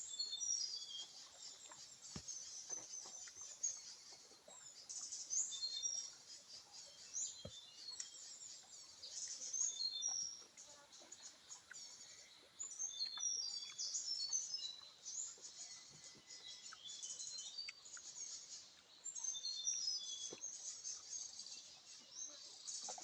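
Small birds chirping and twittering in a dense chorus of short, high notes that keeps going throughout, with a few faint clicks.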